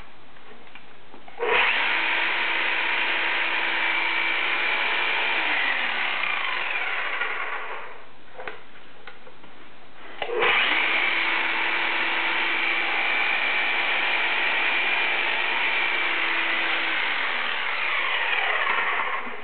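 Milwaukee 5321-21 hammer drill triggered twice: it starts about a second and a half in, runs steadily with a whine for about six seconds and spins down, then starts again about ten seconds in, runs for about eight seconds and spins down near the end.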